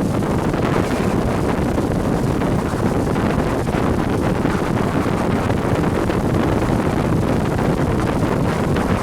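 Steady wind rushing over the microphone of a moving Yamaha jet ski, mixed with its engine and water noise.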